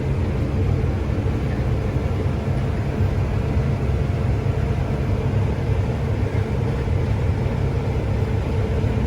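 Steady low rumble of a heavy vehicle's engine running at an even pace, with no changes in pitch or level.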